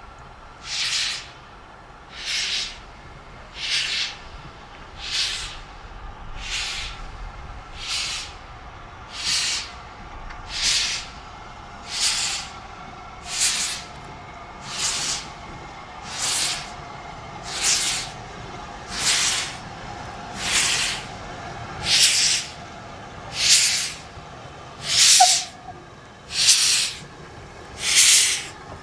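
LMS Stanier Mogul 2-6-0 steam locomotive moving off slowly with its cylinder drain cocks open: an even rhythm of hissing steam chuffs, about one every second and a half, getting louder near the end as it draws close.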